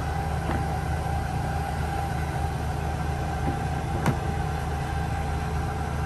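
Food steamer running with a steady low rumble of boiling water, and a single sharp knock about four seconds in as its plastic lid is set back on.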